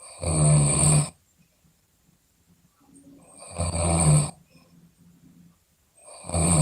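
A sleeping person snoring loudly: three snores, each under a second long and about three seconds apart, with quiet breathing pauses between; the third begins near the end.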